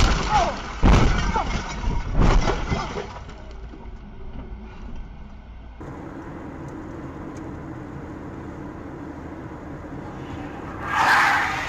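Car crash heard from a dashcam: a collision with crunching metal and breaking glass, several heavy bangs in the first three seconds. Then steady road noise, and near the end a loud burst of noise that swells and fades as another vehicle collision begins.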